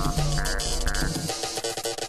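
Raggacore electronic track playing loud: dense, fast drum hits over deep bass.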